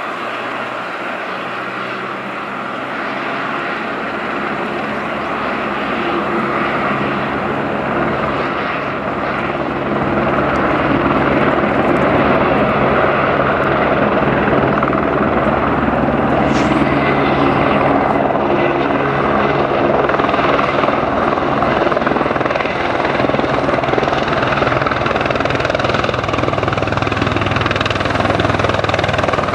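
Airbus Helicopters EC130T2 helicopter, with its Arriel turboshaft and Fenestron tail rotor, running and lifting off into a low hover. The turbine whine and rotor noise grow louder over the first ten seconds or so, then hold steady.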